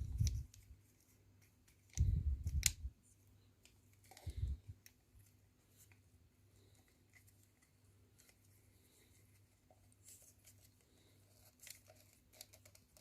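Small handling sounds of working inside an open hot-air soldering station: a few low bumps and sharp clicks in the first five seconds as wire connectors are pushed back in, then only faint scattered ticks over a faint steady hum.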